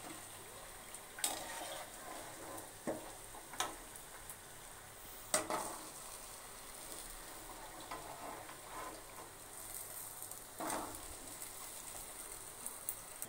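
Balushahi frying in hot oil in a kadhai, sizzling steadily, with several sharp clinks of a metal skimmer against the pan as the pieces are turned and lifted out.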